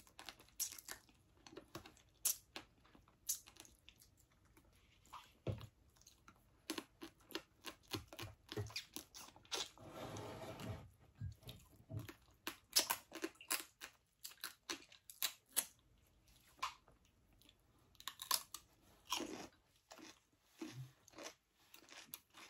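Close-up eating sounds of salted marsh crab and fresh cucumber: irregular crisp crunches and wet chewing, with a longer stretch of crunching about halfway through.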